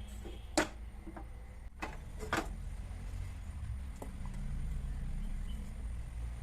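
A spoon knocking and scraping against a cooking pot a few times as thick, freshly cooked rice-flour dough is moved into another vessel, over a steady low hum.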